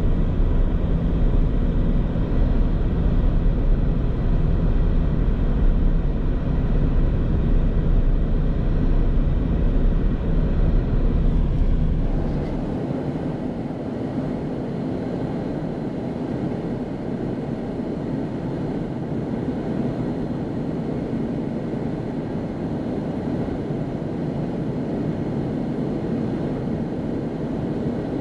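Steady road and engine noise of a moving vehicle, heard from on board. A deep rumble dominates at first and drops off abruptly about twelve seconds in, leaving a lighter steady noise.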